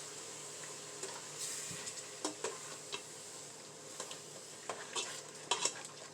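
Spatula stirring and scraping in a pan of butter-and-cream Alfredo sauce, with scattered light clicks against the pan over a faint steady sizzle.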